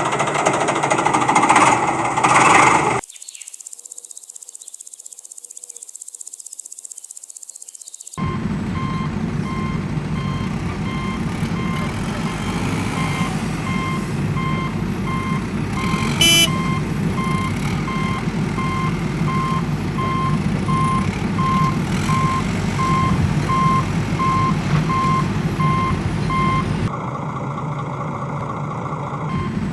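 A vehicle reversing alarm beeping in a steady repeated pattern over a running engine, with one sharp metallic clank about halfway through. The first few seconds hold a burst of rough noise, then a quieter stretch, before the engine and beeping start.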